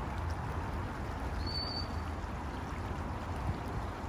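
Steady rush of flowing water with a low wind rumble on the microphone. A brief high whistle comes about a second and a half in.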